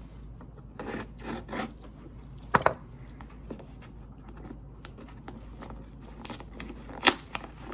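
A Milwaukee knife cutting and sawing at a mailed package: short scraping, rasping strokes and rustling, with two sharp clicks, one about two and a half seconds in and one near the end.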